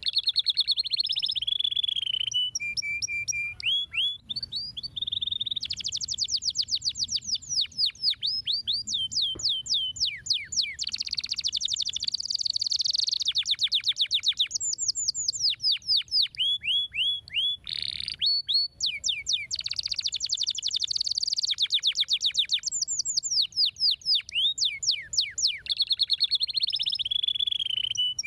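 Domestic canary singing a continuous song of fast trills: rapid runs of repeated sweeping notes that switch to a new note type every second or two, some high and buzzy, some lower and rolling.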